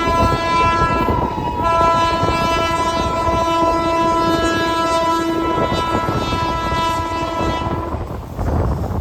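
Train horn sounding a long multi-tone blast, broken off for a moment about a second and a half in, then held until it ends about eight seconds in, over the rumble of a train.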